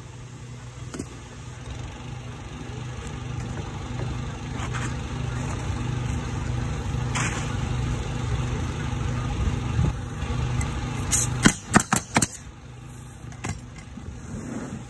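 Pneumatic coil roofing nailer driving shingle nails: a quick run of about five sharp shots about two-thirds of the way through. Under it, a steady low engine hum.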